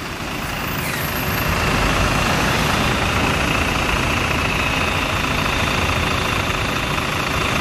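City bus engine idling at the kerb close by, a steady low rumble that swells over the first couple of seconds and then holds level.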